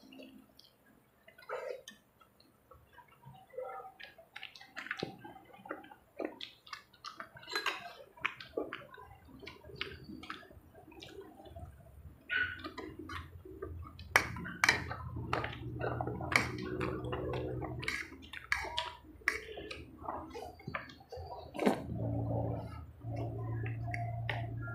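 Close-up eating sounds from two people eating with their hands: wet chewing, lip-smacking and slurping of spaghetti and fried chicken, many short sharp clicks. A low steady hum runs under it in stretches from about halfway in.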